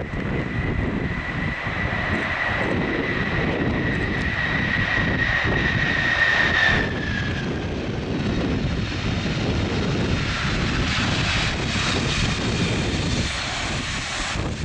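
Boeing 747-400F's four jet engines during landing and rollout: a high whine that slowly falls in pitch over a low rumble. The whine stops about seven seconds in, leaving a broad rushing jet noise.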